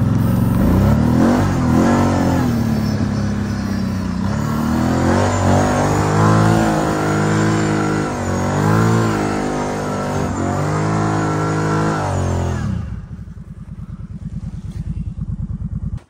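Vehicle engine under way, its pitch rising and falling with the throttle; about thirteen seconds in it drops to a quieter, steady low idle.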